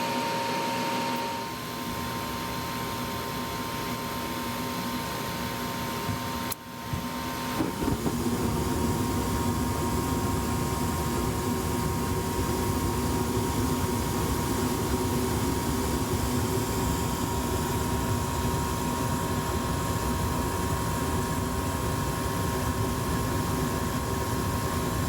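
Gas furnace running after firing up, its pressure-switch fault cleared: a steady motor hum with a few held tones, which dips briefly about six seconds in, then gives way to a louder, fuller steady running sound that holds for the rest of the time.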